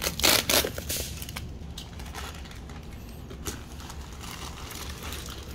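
Packaging being handled while exhaust parts are unpacked: rustling and crinkling of bubble wrap, wrapping paper and cardboard, loudest in the first second. After that come faint scattered handling ticks over a low steady hum.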